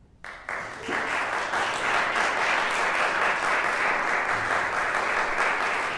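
Audience applause breaking out a moment in and quickly building to steady clapping.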